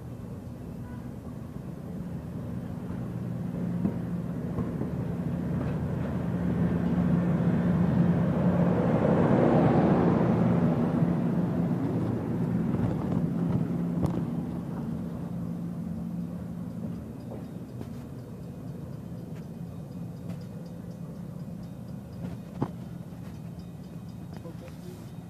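Granite Rock Co. No. 10 diesel locomotive and its passenger cars rolling slowly past at close range. The engine's steady hum and the rumble of the wheels build to their loudest about ten seconds in, then fade as the train moves away, with a few clicks from the wheels on the rails.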